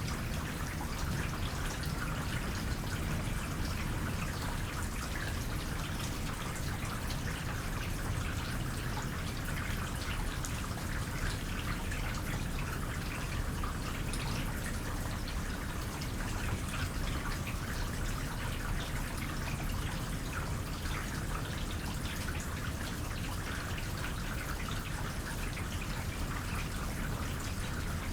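Light rain falling steadily, with many small drips and a soft trickle of water.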